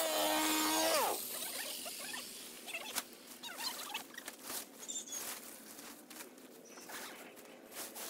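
A small engine-powered tool, such as a brush cutter or chainsaw, runs briefly, then winds down and stops about a second in. Scattered light clicks and rustling follow.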